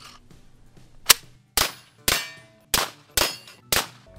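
Tavor X95 bullpup rifle fired semi-automatically: six sharp shots about half a second apart starting about a second in, with a seventh at the very end.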